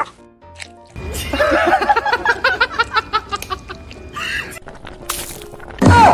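A person laughing hard in a quick run of repeated bursts, with a loud sudden noise near the end.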